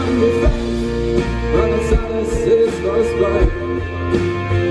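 A live pop-rock band playing: acoustic guitar strumming over drums, with a steady beat.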